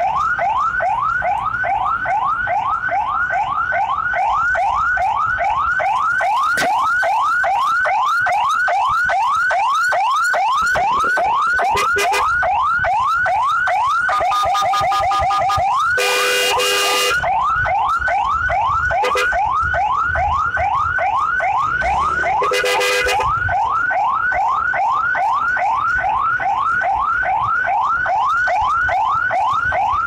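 Ambulance siren yelping in quick rising sweeps, about three a second, switching briefly to steady tones about halfway through. A scooter horn is honked about five times over it, the longest blast just after the siren's switch, to clear traffic for the ambulance.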